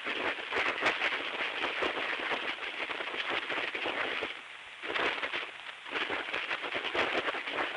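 Shortwave radio static from a received signal: a hiss of white noise that rises and falls in phrases with the cadence of speech, dipping in two short pauses about halfway through. It sounds like a voice buried in the noise, of unknown origin.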